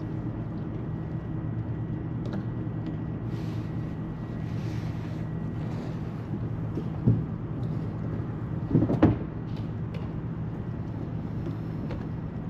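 A motor running steadily with a low, even hum, as on a fishing boat. Two short knocks stand out, about seven and nine seconds in.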